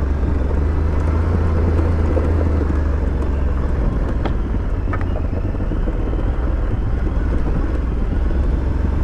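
Aprilia Tuareg 660's parallel-twin engine running steadily under a heavy low rumble from riding on a gravel bush track. There are two sharp ticks about four and five seconds in.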